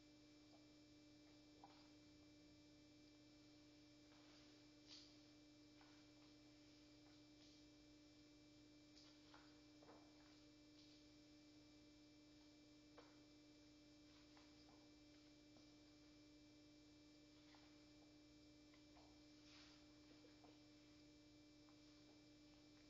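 Near silence: a faint steady electrical hum with a few scattered faint ticks.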